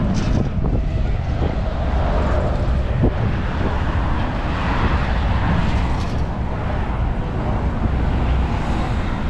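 Steady city traffic noise: vehicles rumbling past on the road, with a single short knock about three seconds in.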